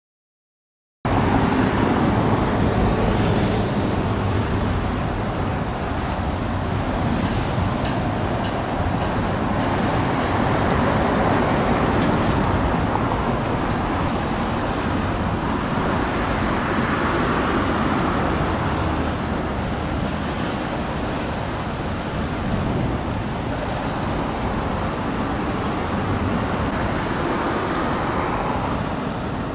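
Steady outdoor rumble with wind noise on the microphone, cutting in suddenly about a second in, with a low hum underneath.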